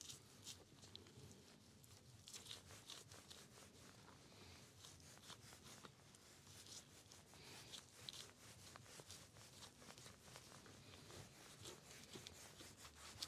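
Knife cutting and peeling the thin membrane off raw lamb: faint scraping and tearing with many small clicks.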